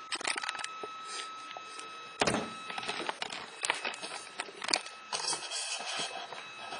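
Handling noise from a phone camera being moved: scattered clicks and knocks, the loudest about two seconds in, over a faint steady high-pitched tone.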